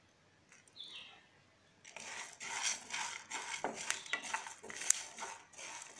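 A spatula stirring dry seeds and dals in a metal pan, scraping and rattling with many small clicks as the whole spices are dry-roasted. It starts about two seconds in.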